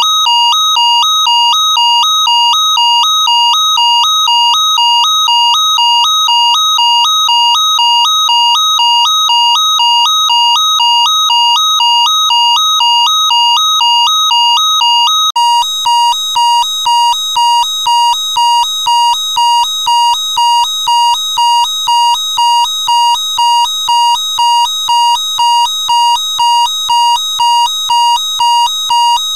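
Electronic alarm beeping: a steady, evenly repeating high-pitched tone pulsing about one and a half to two times a second. About halfway through it switches to a second alarm with a slightly different, brighter beep at the same pace.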